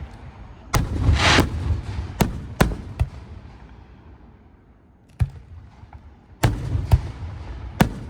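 Aerial fireworks shells bursting: about nine sharp booms in two clusters, with a low rumble lingering between them and a dense crackling burst about a second in. The booms ease off briefly in the middle, then start again about five seconds in.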